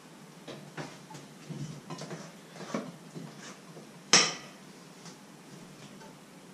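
Kitchenware clattering: a metal utensil clinking and scraping against a metal pot in a series of light knocks, then one loud sharp clank about four seconds in.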